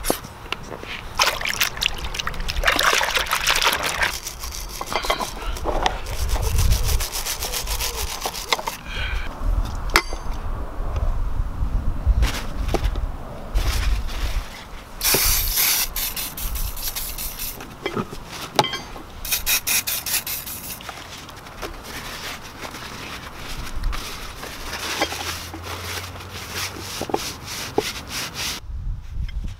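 An aerosol can hissing in several bursts of one to two seconds onto the vice's threaded screw to clean off old grease, with paper towel rubbing along the screw and small clicks of handling in between.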